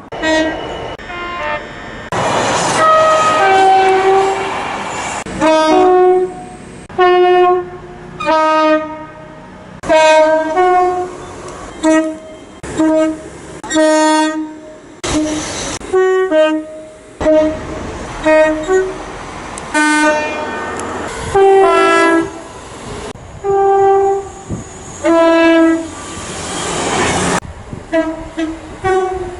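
British train two-tone horns, a rapid run of short blasts from several trains cut one after another, each sounding two notes in turn. Some rushing noise from passing trains lies under a few of the blasts.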